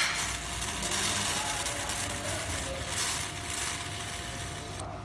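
1000 W Raycus fiber laser welder welding a seam on steel sheet: a steady hiss and crackle from the weld, over a steady machine hum. The hiss stops near the end as the welding stops.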